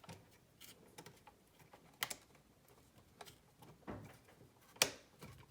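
A few separate small clicks and knocks as a GFCI outlet and its wires are worked out of a plastic junction box, with a sharp click about two seconds in, a duller knock just before four seconds, and the sharpest click near the end.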